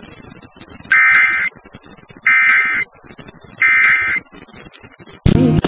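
Three identical short bursts of EAS SAME digital data tones, a warbling buzz, evenly spaced about a second and a half apart over faint radio hiss. They are typical of the end-of-message code that closes an emergency alert broadcast. Near the end the audio cuts abruptly to a different loud sound.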